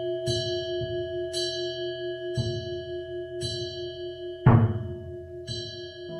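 Buddhist temple bells at a monastery morning service: a bell struck about once a second, each strike ringing out over a steady, slowly pulsing ring underneath, with one louder, heavier strike past the middle.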